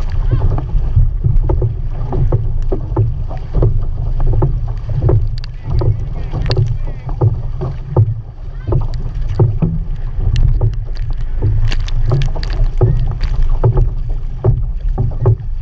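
Outrigger canoe paddled at race pace: paddle blades splashing into the water again and again, and spray slapping at the stern, over a constant low rumble of wind and water on the microphone.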